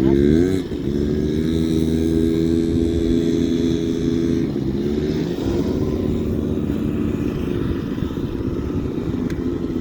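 A small motor vehicle's engine revs up sharply at the start and then runs at a steady pitch. Halfway through it wavers and settles a little lower.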